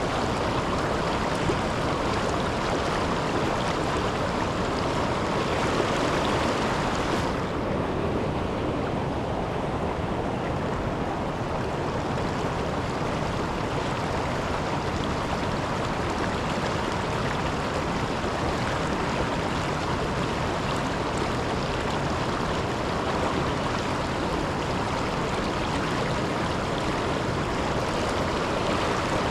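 Steady rush of river water at a waterfall, an even hiss with no break. About seven seconds in, its higher part dulls and the sound turns less bright.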